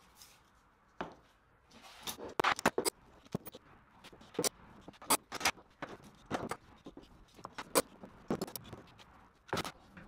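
Wooden edge strips and metal bar clamps being set down and fitted around a clamped glue-up on a workbench: irregular sharp clacks and knocks of wood and clamp parts, a dozen or so spread out with short gaps.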